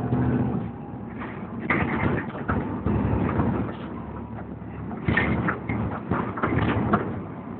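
Interior of a moving Volvo B7TL double-decker bus: a low engine and road rumble under irregular rattling and knocking of the body, windows and fittings, heaviest about two seconds in and again from about five to seven seconds in.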